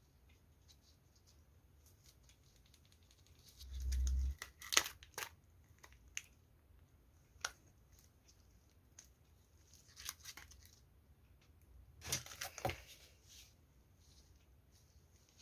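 Parcel packaging being opened by hand: scattered tearing, crinkling and short clicks, with a low thump about four seconds in and another cluster of rustling near the end.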